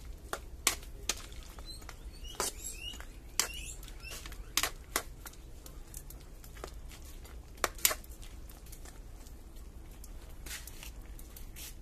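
A metal spoon stirring chicken-feet adobo in an aluminium wok, clinking against the pan's sides at irregular moments, with pairs of clinks about five and eight seconds in.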